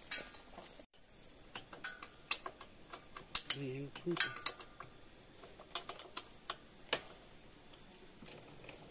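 Insects (crickets) keep up a steady high-pitched buzz, with scattered sharp clicks and knocks over it and a brief low voice about three and a half seconds in.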